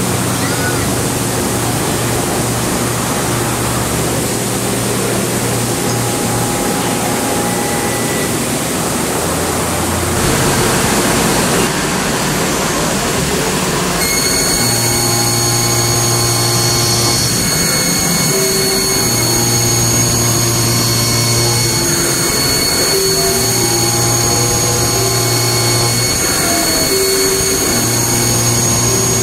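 Steady machine-shop noise with hiss and hum from an automated machining cell. About halfway through it changes to a special-purpose soft milling machine rough-cutting a CV joint outer race: several steady high whines, and a low hum that comes and goes every few seconds as the cut runs.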